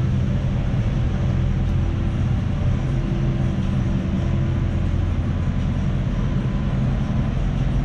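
A car engine running steadily, a low, even drone without revving.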